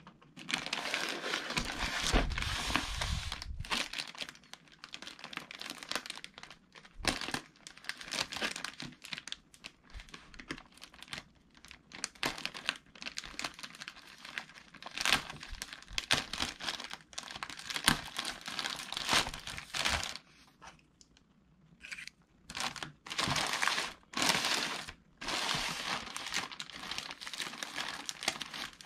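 Packaging being unwrapped by hand: crinkling and rustling in irregular bursts with sharp crackles, and a short lull about three-quarters of the way through.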